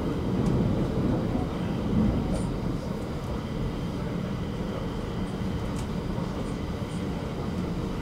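Metro train running through a tunnel, heard from inside the car. Wheels on rails give a steady low rumble, with faint brief high squeaks now and then, and the rumble eases slightly about three seconds in.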